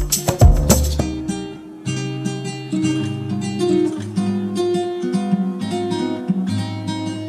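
Background acoustic guitar music, plucked and strummed, coming in about two seconds in. Before it, a stretch of sharp rhythmic strikes ends about a second in.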